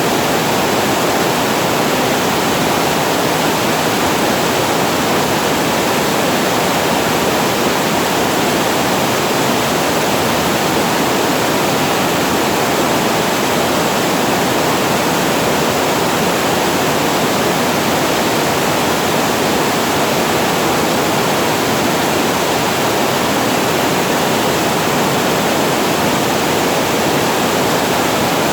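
Water spilling over a reservoir weir and falling below it: a loud, steady rush of falling water with no breaks or changes.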